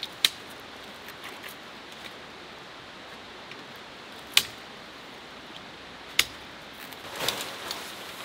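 Plastic clips on a Snow Peak Alpha Breeze tent snapping onto its pole: three sharp clicks a few seconds apart over a steady hiss. Near the end there is tent fabric rustling as the rain fly is pulled over the tent.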